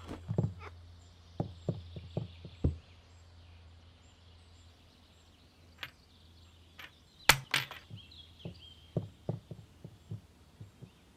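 Sparse light taps and soft knocks of a cartoon cat's paws landing on a chair and desk. About seven seconds in comes a pen clattering on a wooden floor with two sharp clicks close together, then a scatter of small ticks.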